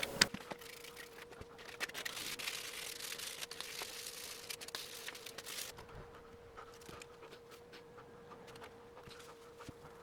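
Faint scraping and rustling handling noises with many small clicks, a hissing stretch in the first half that drops away about six seconds in, over a faint steady hum.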